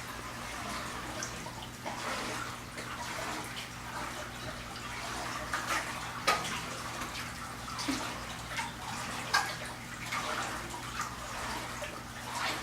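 Water splashing and trickling in a large aquarium, with irregular sharp splashes (the biggest about six and nine seconds in) over a steady low hum.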